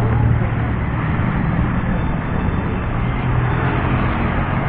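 Road traffic noise: a steady low engine hum from motor vehicles and scooters along a busy street.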